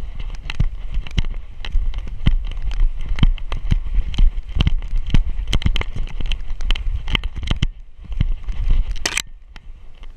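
Dog running and bounding through snow, heard through a camera harness on its back: quick irregular crunches and knocks from its paws and the rattling mount, over a low rumble of motion and wind on the microphone. A brief sharp scratchy noise about nine seconds in.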